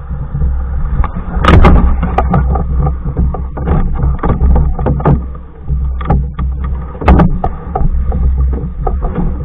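Hornbeck New Trick solo canoe being paddled: a heavy low rumble throughout, with frequent sharp knocks and clicks, the strongest about a second and a half in and again about seven seconds in.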